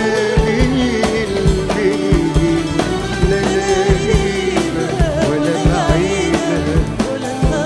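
Live Arabic pop music from an orchestra with a regular drum beat and a wavering melody line over it.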